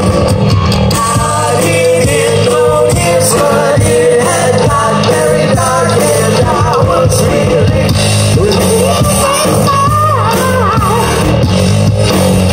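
Live rock band playing loud, with electric guitars, bass and drums under a sung vocal.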